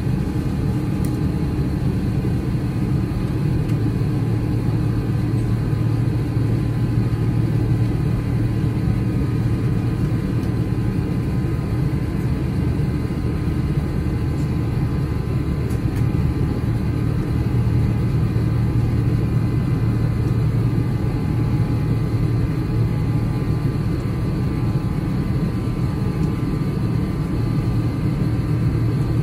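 Steady low drone inside the cabin of an Airbus A350-900 climbing out after takeoff: the noise of its Rolls-Royce Trent XWB engines and the airflow, with faint steady tones above it.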